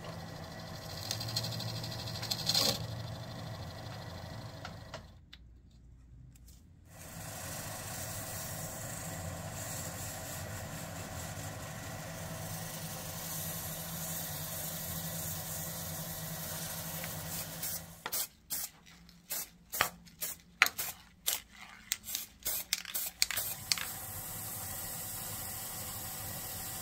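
A small metal lathe runs with a steady hum while a wooden crank handle spins in its chuck. It is turned with a cutting tool, then sanded with an abrasive strip, adding a hissing scrape. Later comes a quick irregular run of sharp knocks.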